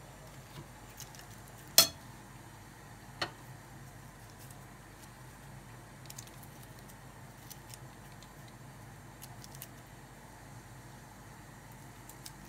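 Two sharp knocks of something being handled on the kitchen counter, a loud one about two seconds in and a smaller one a second and a half later, followed by faint scattered clicks and taps over a steady low hum.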